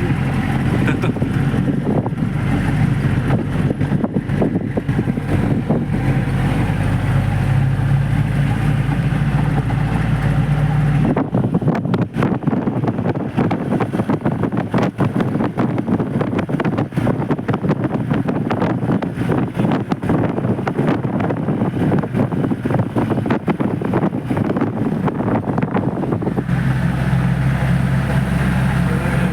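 Old jeep engine running steadily on the move, heard from the ride. For about fifteen seconds in the middle the hum is buried under a dense, rough rattling and jolting, then the steady engine hum returns near the end.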